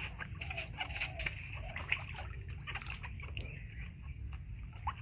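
Water splashing and sloshing in a plastic tub as a baby monkey paddles and dunks itself, in short irregular splashes, with birds chirping in the background.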